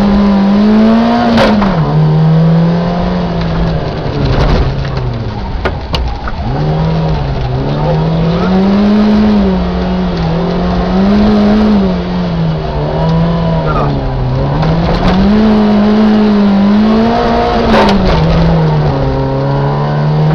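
Peugeot 106 rally car engine heard from inside the cabin, revving up and dropping back again and again as the car accelerates, changes gear and slows for turns. A few sharp knocks come through over it.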